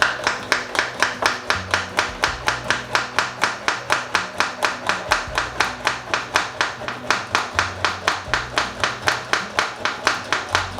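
Manual milk frother pumped briskly up and down in milk, a rapid even rhythm of about four to five strokes a second.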